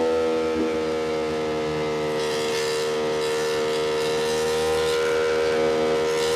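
Ducati Panigale V2's V-twin engine running at steady revs while the bike cruises, a held engine tone with wind rush that swells about two seconds in and again near the end.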